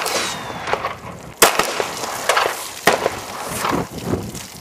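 Ruger LCP .380 ACP pocket pistol firing 90-grain Hornady FTX rounds: two loud shots about a second and a half apart, each followed by a ringing echo. Lighter cracks fall in between.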